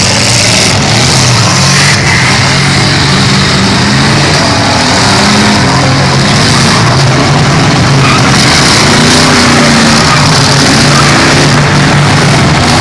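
Engines of several full-size demolition derby cars revving hard at once, loud and continuous, their pitches rising and falling as the cars spin their wheels and push against each other.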